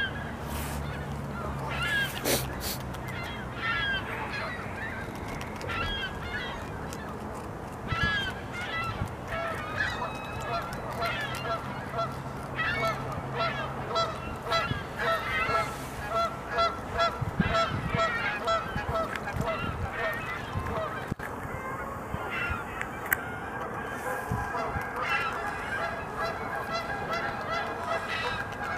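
Geese honking in long runs of repeated calls, thickest from about a third of the way in. Beneath them are faint clicks and scraping of beavers gnawing the cambium off a log.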